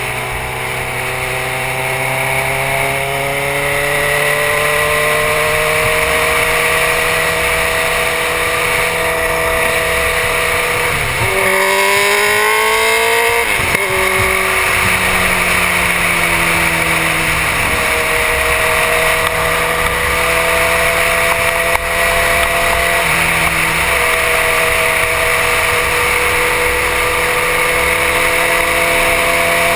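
2006 Suzuki GSX-R1000 inline-four engine running under load, with wind rushing past the helmet. About a third of the way through, the revs rise and fall quickly several times, then settle back to a steady pitch.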